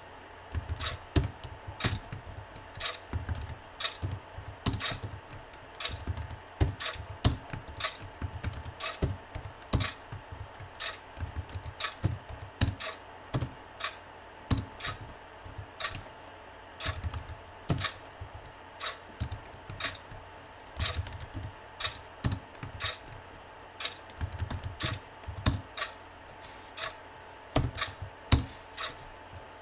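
Typing on a computer keyboard: irregular keystrokes in uneven runs and pauses, with a faint steady hum beneath.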